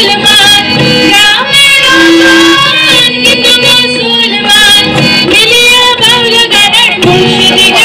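Women singing a melodic song live into a microphone, with instrumental accompaniment.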